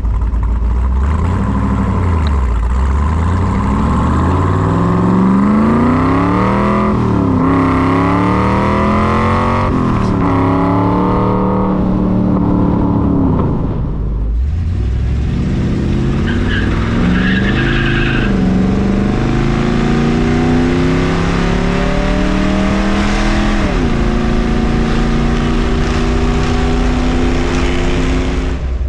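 Big-block Ford V8 of a 1966 Cobra 427 accelerating through the gears, its pitch climbing and falling back at about three upshifts. After a sudden cut, another Ford big-block V8 car accelerates with a couple more gear changes, then runs steadily at cruising speed.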